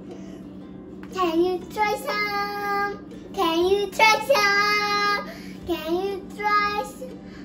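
A young girl singing in short phrases, with held notes and sliding pitch and brief pauses between them. A faint steady hum runs underneath.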